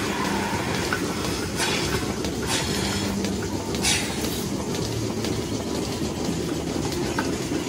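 Milking parlour machinery running with a steady mechanical clatter and hum, broken by short bursts of hissing air as milking clusters are handled and teat cups are put on a cow's teats.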